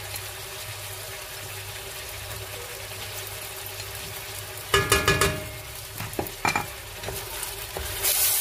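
Sliced onions and beef frying in oil in a stainless steel pot, a low steady sizzle. About two-thirds of the way through, a wooden spoon knocks and scrapes against the bowl and pot as tomato paste is scraped in, and near the end the sizzle jumps louder as the pot's contents are stirred.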